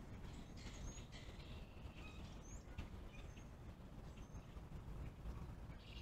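Faint, steady low rumble of distant road traffic, with birds giving short high chirps now and then.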